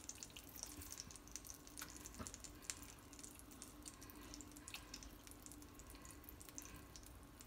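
Faint, scattered crackling of vegetable oil and butter heating in a non-stick frying pan, over a low steady hum.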